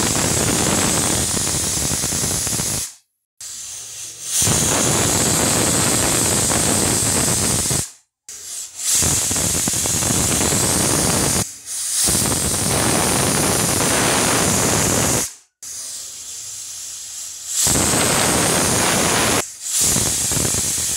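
Hawkins pressure cooker whistling on a high gas flame: steam blasts out from under the weight valve in long, loud hissing jets. Several whistles follow one after another, broken by sudden cuts. This is the cooker at full pressure, counting whistles while the dal cooks.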